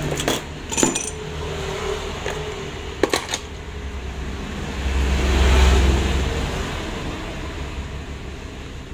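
A few light metallic clicks from handling the open watch, one near the start and a quick pair about three seconds in, over a steady low hum. About five seconds in, a low rumble swells up and fades over the next two seconds.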